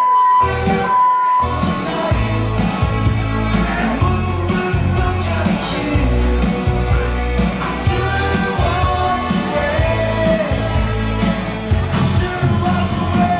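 A recorded rock song with a sung lead vocal playing loud over the club's sound system. Right at the start the track drops out twice for short steady censor bleeps, each under half a second.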